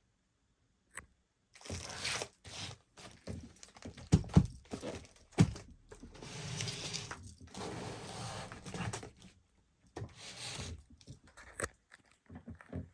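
Packaging rustling and crinkling as items are handled, with a few sharp knocks and thumps a little after the middle as things are set down.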